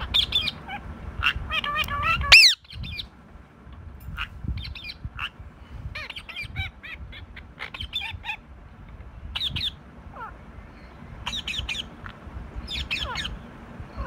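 Rose-ringed parakeet squawking and chattering in a run of short, sharp calls; the loudest is a shrill squawk a couple of seconds in, followed by scattered shorter calls.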